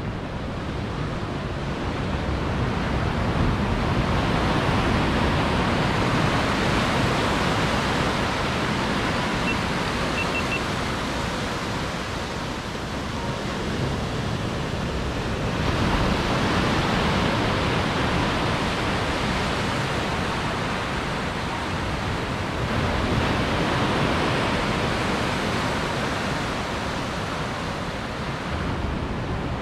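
Ocean surf breaking and washing up the beach, a steady rushing that swells and eases in slow surges.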